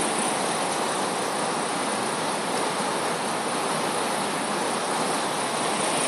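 Rushing floodwater of the swollen Passaic River, heard as a steady, even rush of noise.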